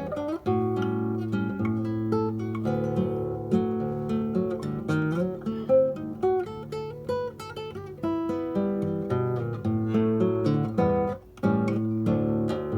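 Acoustic guitar playing a choro-maxixe: a quick plucked melody over a moving bass line, with a brief break about eleven seconds in.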